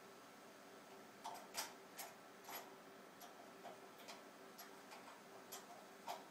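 Faint, irregular clicks and taps, starting about a second in, as the server rack's stabilizer feet are worked on at the base of the cabinet, over a faint steady hum.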